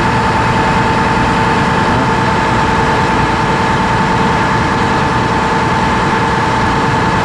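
Boat's engines running steadily under way: a constant low drone with a steady high whine over it.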